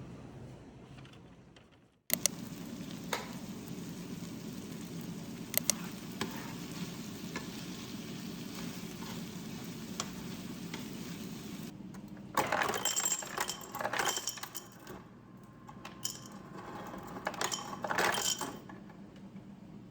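Kitchen sounds: a steady sizzling hiss with a few isolated clicks, then from a little past the middle a run of sharp metallic clinks of utensils against dishes.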